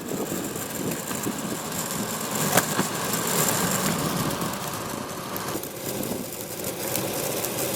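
Longboard rolling with a steady wheel noise and a faint rattle from the trucks, plus one sharp click about two and a half seconds in. The rattle is the sign of loose parts at the axle, most often the spacer between the wheel bearings, otherwise the speed rings or the kingpin washer, not worn-out bearings.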